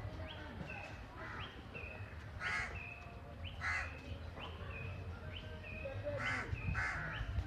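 Birds calling: a steady run of short rising chirps, with harsh, rasping calls breaking in several times.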